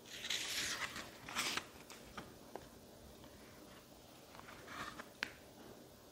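Paper pages of a Little Golden Book rustling as they are turned and the book is turned over, in a few short brushes, with a light tap just after five seconds in.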